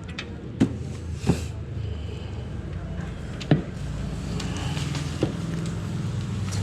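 Several sharp knocks and clicks from handling computer hardware while cables are being connected, over a steady low hum.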